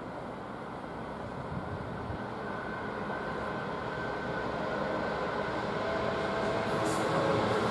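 Class 66 diesel-electric freight locomotive, with its EMD two-stroke V12 engine, approaching with a container train; the engine and wheel noise grow steadily louder as it nears.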